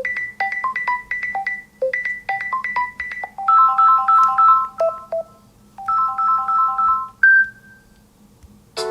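A Samsung Galaxy phone plays a built-in ringtone as it is previewed: a quick melody of short, bright notes in repeating phrases, ending on one held note about seven seconds in. A different ringtone starts just at the end, as the next tone is selected.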